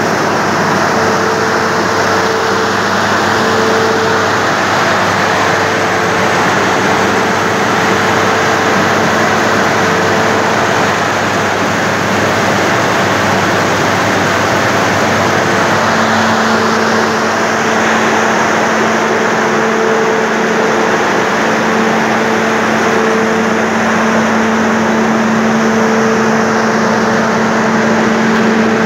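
Corn dryer machinery running: a steady mechanical whir from its electric drive motors and moving parts, with a steady hum that strengthens a little about halfway through.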